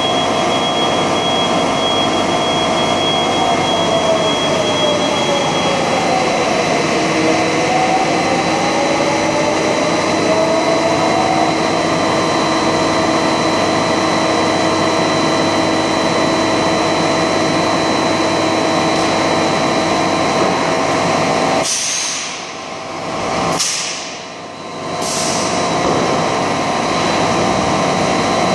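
Tongda TDW 350D extrusion blow moulding machine running through a moulding cycle: a loud, steady machine drone with tones that slide down and back up about a third of the way in. About three-quarters through, the drone drops and several short, sharp hisses of air follow, about one every second and a half.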